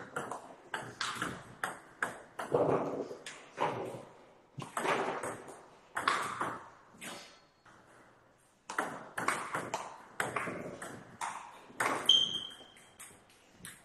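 Table tennis rally: the plastic ball clicking off the bats, one of them faced with long-pimpled rubber, and bouncing on the table in quick succession. Play stops for about a second past the middle, then picks up again. A brief high squeak sounds near the end.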